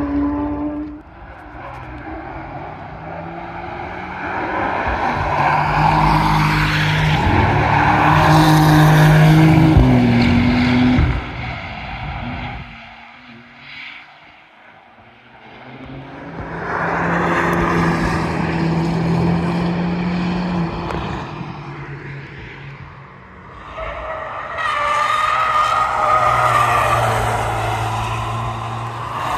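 Performance cars driven hard past a race-track verge, one after another: each engine note swells as the car approaches and fades as it goes by. Three passes are heard, with a brief lull about halfway through.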